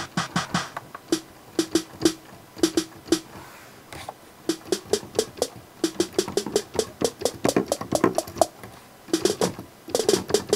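TR-808-style snare sample played from the EXS24 sampler, struck repeatedly in uneven runs of quick hits at shifting pitches, as it is tried out up and down the keyboard.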